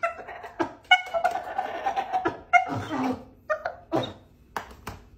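Dog whining in a run of short pitched calls, one sliding down in pitch partway through, with sharp clicks between them.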